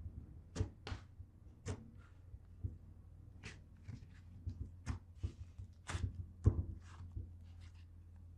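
Fluffy slime being kneaded and squeezed by hand, giving irregular sharp pops and clicks, several a second at times.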